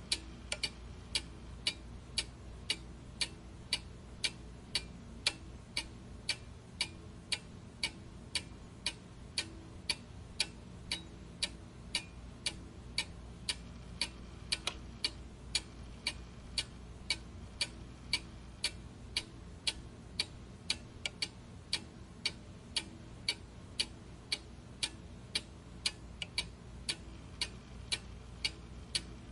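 A clock ticking steadily at an even pace, about two ticks a second.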